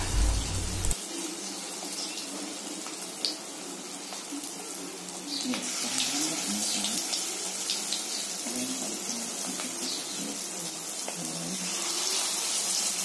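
Hot oil in a kadai sizzling and bubbling steadily as batter-coated chicken pieces are deep-fried, with a few faint clicks as more pieces are dropped in.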